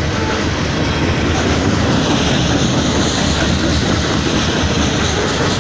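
Loaded coal hopper cars rolling past at close range: a steady, loud rumble of steel wheels on rail, broken by a dense run of knocks as the wheels cross the rail joints.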